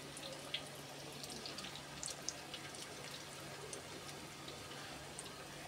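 Battered chicken pakoras deep-frying in hot oil: a steady sizzling hiss with scattered crackles and pops.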